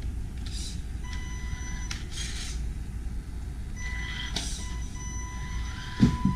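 Electronic beeping from a newly powered-on RC car's electronics: a steady high tone that sounds on and off at first and then holds. Brief rustling of handling noise comes through between the tones.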